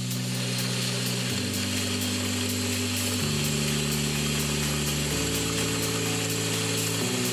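A small drill running as a fine twist drill bores a cross hole through brass rod, guided by a drilling-jig bushing: a steady high whir with faint repeated ticks. Background music with slow chord changes plays underneath.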